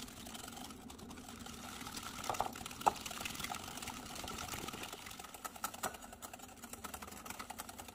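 Wire turbo whisk beating egg yolks with sugar, evaporated milk and vanilla in a glass bowl: a rapid, steady clicking of the whisk against the glass with a wet swishing of the mixture, and a few louder clicks between two and three seconds in.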